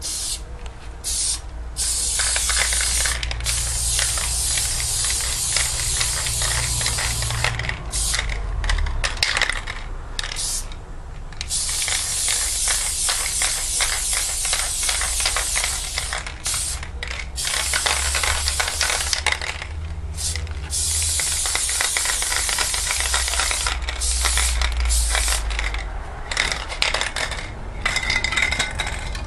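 Aerosol spray-paint can hissing as paint is sprayed onto a wall, in long bursts of several seconds with quick short spurts and brief pauses between them.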